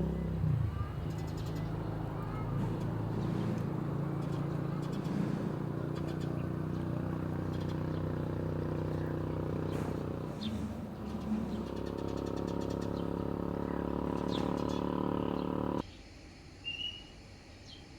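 A steady motor hum that cuts off abruptly about sixteen seconds in, leaving quiet outdoor background with a short bird chirp near the end.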